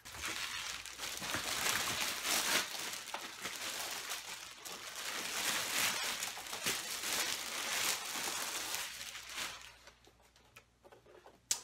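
Plastic packing wrap crinkling and rustling in irregular handfuls as a keyboard is unwrapped. It stops about three-quarters of the way through, and a single sharp click follows near the end.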